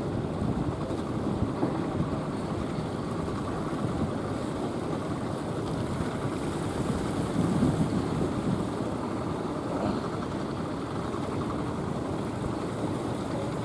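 Heavy surf churning and breaking, with wind on the microphone and a fishing outrigger boat's engine running as it pushes through the waves. A louder swell comes a little past the middle.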